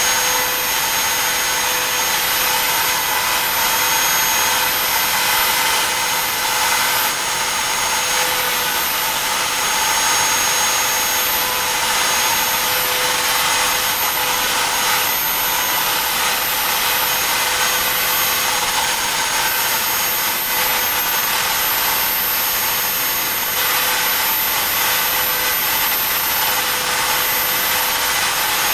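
BobsCNC E3 desktop CNC router carving stars into a painted wooden board: the router spindle runs at a steady high whine over the hiss of the bit cutting wood.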